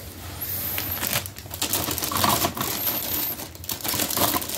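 Hard plastic action figures knocking and clicking together as they are handled and set down, a run of light uneven clatters.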